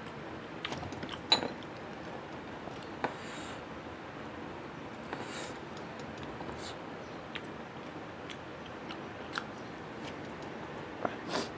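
Close-up eating sounds from someone eating rice and chicken curry by hand: small wet clicks and lip smacks from chewing, over a steady low hiss. A few short breathy hisses are drawn in against the chilli heat, which the eater calls very spicy.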